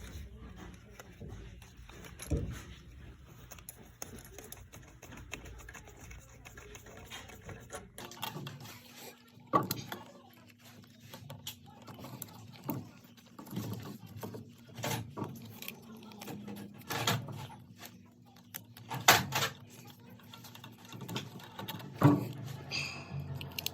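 Hand tools and metal parts of an oil furnace clinking, tapping and knocking irregularly as they are worked on, with a low steady hum under the first third.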